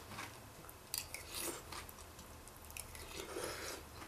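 A person chewing a mouthful of Raisin Bran Crunch cereal in milk, which the eater calls chewy. A few short clicks come along the way, about a second in and again after three seconds.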